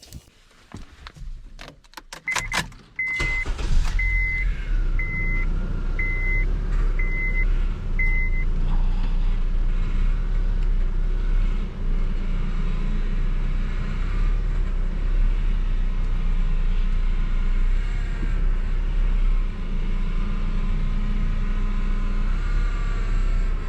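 A car engine is started and runs at idle while a dashboard chime beeps seven times, about once a second. Later a high squeal of wavering pitch comes from the power steering: the complained-of squealing noise, which the mechanic traces to a failing pump or a leak from the power steering pressure hose.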